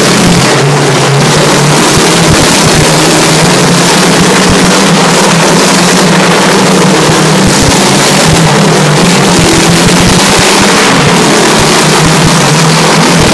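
Motorcycle engines running loud and steady as riders circle the vertical wooden wall of a Wall of Death drum.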